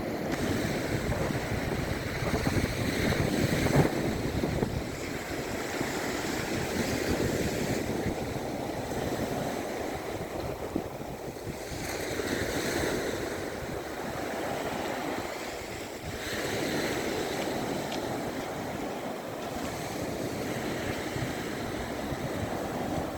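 Small sea waves breaking and washing on the shore of the Sea of Azov, swelling and easing every few seconds, with wind rumbling on the microphone.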